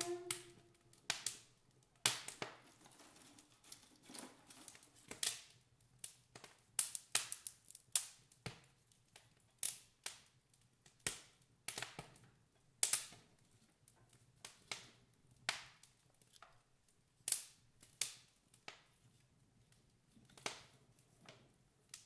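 Wood fire crackling in an open wood stove: sharp, irregular pops from the burning logs, about one or two a second and varying in strength.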